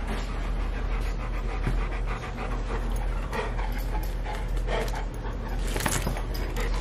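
Excited golden retriever panting, a steady run of quick breaths.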